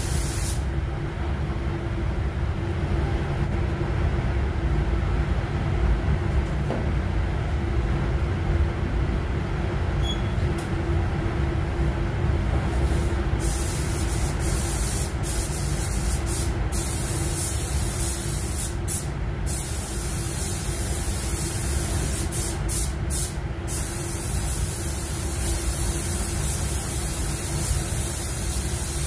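Steady low rumble and hum of the spray booth's ventilation running throughout. A paint spray gun's air hiss cuts off just after the start and comes back about thirteen seconds in, stopping briefly several times as the trigger is let off, while pearl white basecoat is sprayed onto a car bumper.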